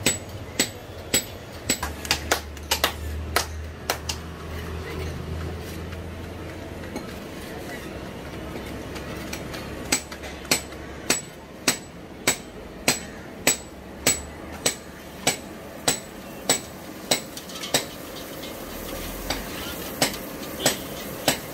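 Bhatura dough being slapped flat between the palms: sharp, regular pats, nearly two a second, with a pause of several seconds in the first half. A low hum runs for a few seconds early on.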